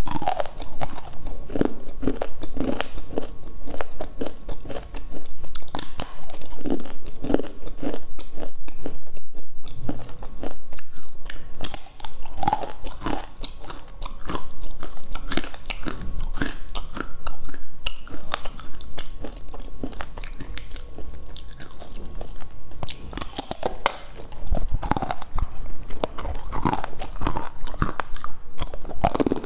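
Close-miked biting and chewing of crunchy peanut brittle: dense, repeated crunching and crackling.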